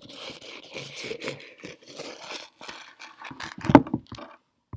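Irregular rustling and scraping with scattered small clicks, and one sharp knock a little under four seconds in.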